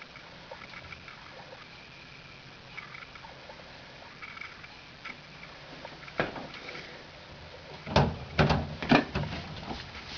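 Faint light clicks and rustling, then a single sharp knock about six seconds in and a quick run of four or five loud knocks and clatters a little before the end.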